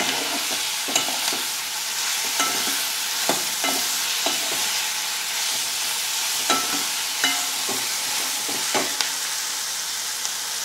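Chopped onions, tomatoes and green chillies sizzling in oil in a metal kadai as a metal ladle stirs them, clinking and scraping against the pan at irregular intervals. The vegetables are being sautéed until soft and the raw smell is gone.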